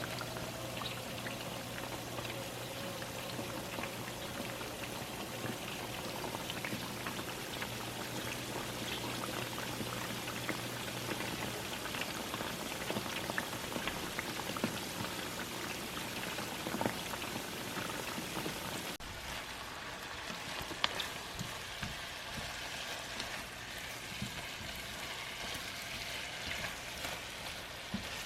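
Chicken cooking for kkanpunggi, sizzling and crackling steadily in hot oil in a pan. About two-thirds of the way through the crackle turns duller.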